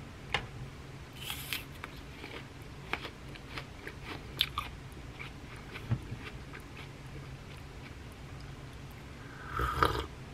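Crisp bites and chewing of apple slices spread with peanut butter, a scatter of short crunches over a low steady hum. Near the end, a louder sip from a mug.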